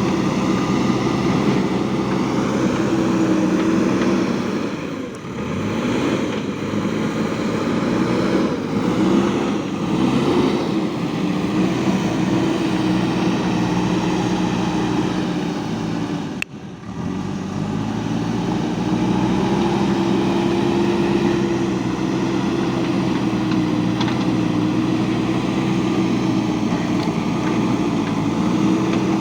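A machine running steadily with a wavering hum. It dips about five seconds in and breaks off for an instant a little past halfway.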